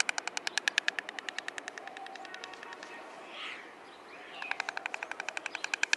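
White stork bill-clattering: a fast, even rattle of about ten clacks a second. It pauses for about two seconds in the middle, then resumes.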